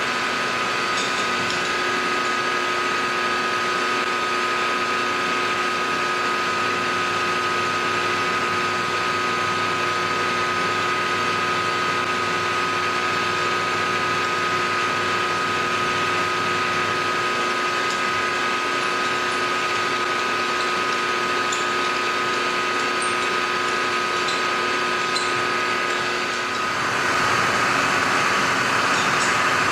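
Benchtop milling machine running with a steady motor and spindle whine while an end mill takes a light cut on an aluminium block. Near the end it grows louder.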